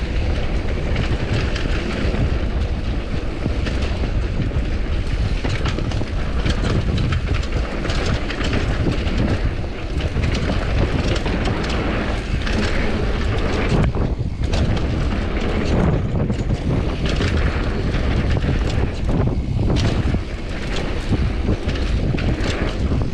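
Commencal Supreme DH downhill mountain bike descending a rough trail at speed: steady wind rumble on the camera microphone with frequent knocks and rattles from the bike over the bumps.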